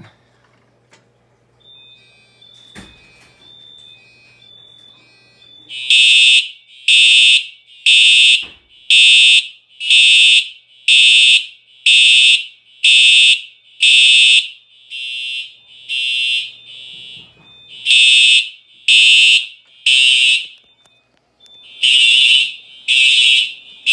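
Simplex TrueAlert fire alarm horns on a 4100U system that has just been activated. Faint short beeps start about two seconds in, then from about six seconds the horns blast loudly about once a second, with a weaker patch and a brief gap later. This is the erratic, out-of-sync start-up that happens when the many 4009 extenders are triggered at once.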